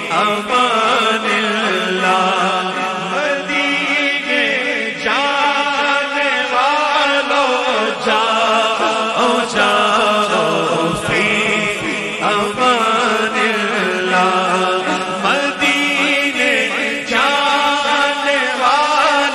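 A man singing an Urdu naat in a slow, ornamented devotional style, with long wavering held notes, over a steady hummed drone.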